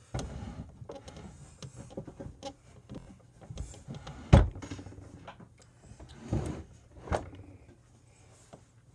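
Things being handled close to the microphone: a run of clicks, knocks and rustling, with a few thumps, the loudest about four and a half seconds in.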